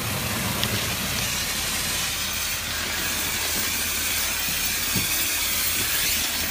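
Shotcrete nozzle spraying concrete onto a wall: a steady hiss of air and concrete, with a low steady hum underneath.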